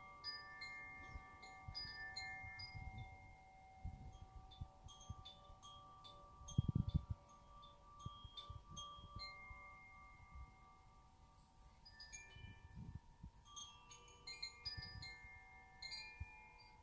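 Hand-held cylindrical wind chime moved by its cord, ringing in irregular tinkling strikes over lingering tones. A low thump about seven seconds in is the loudest moment.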